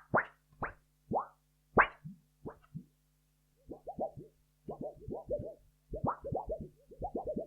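Wobbly cartoon sound effects: a run of short upward-sweeping plops that die away about three seconds in, then after a brief gap, quick clusters of wavering, bouncy pitched notes.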